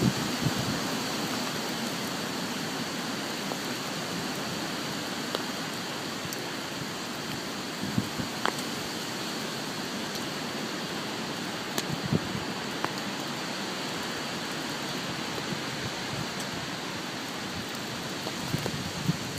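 Steady hiss of hurricane rain and wind, with a few brief low thumps.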